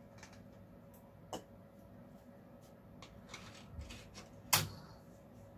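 Small clicks and rustling as a 3.5-inch floppy cleaning diskette is handled, then one sharp click about four and a half seconds in as the diskette is pushed into the PC's 3.5-inch floppy drive and seats.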